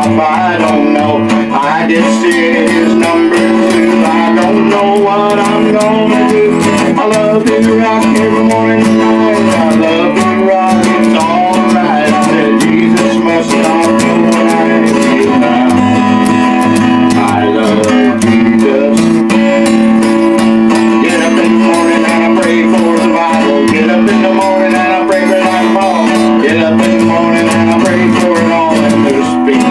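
Acoustic guitar playing chords without a break.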